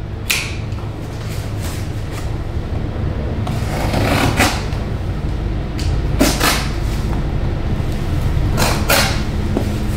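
Cardboard box being opened and its contents handled: a handful of short rustling and scraping noises, spaced a second or two apart, over a steady low hum.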